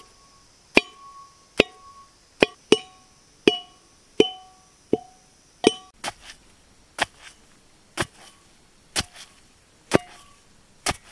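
Heavy iron pestle pounding fried prawns, garlic and green chillies in an iron mortar, with a steady run of sharp strikes, roughly one or two a second. The first strikes ring on with a metallic clang; from about halfway the blows land duller.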